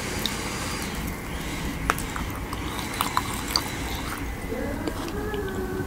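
A few soft, wet mouth clicks over a steady low background noise, with small squeaky sounds near the end.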